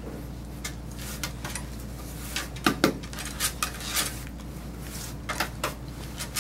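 Hand brush sweeping clipped dog hair off a rubber-topped grooming table: irregular short scratchy strokes and light knocks, over a steady low hum.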